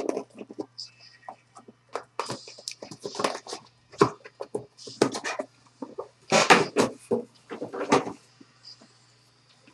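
Trading-card box and its packaging being handled and opened: irregular rustling, clicks and knocks in bursts, loudest in a cluster about two-thirds of the way through.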